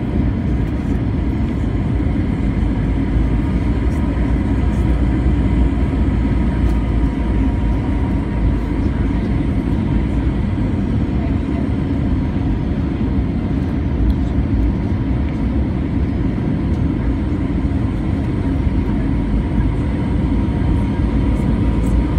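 Steady loud rumble of a jet airliner's engines and rushing air heard inside the cabin on final approach, with a faint steady whine above it.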